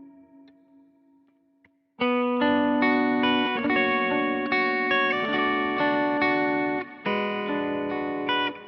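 Covenant Tradition T-SP electric guitar with humbucking pickups, played through an amplifier. The last notes ring out and fade almost to silence, then about two seconds in a new phrase of picked notes starts suddenly and plays on, broken by a short pause near the end.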